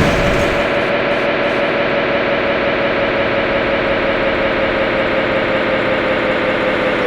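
School bell signal sounding: a loud, steady, held tone over a buzzing rasp, unbroken throughout.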